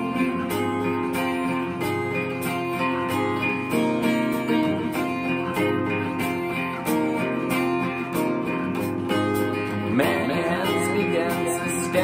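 Epiphone acoustic guitar strummed in a steady rhythm, chords ringing between the vocal lines.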